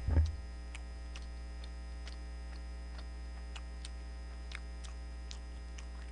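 Faulty microphone picking up a steady low electrical buzz (mains hum) with faint irregular crackling clicks, which the streamer calls loud noise and blames on the mic. A short vocal sound comes right at the start.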